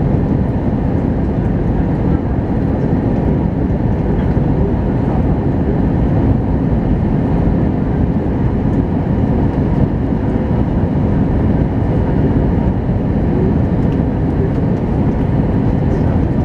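Steady low rumble of airflow and engines heard inside the passenger cabin of an Airbus A321 airliner on its descent.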